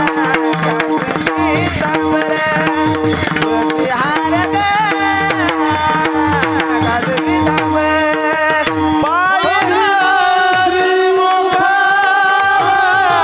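Marathi kirtan devotional song: a singer with a hand drum played in quick, dense strokes over a steady held tone. About nine seconds in, the drumming thins and the voice holds a long, wavering high note.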